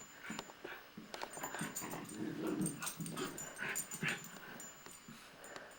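Two pet dogs play-fighting, making dog noises in short, irregular bursts with sharp clicks mixed in.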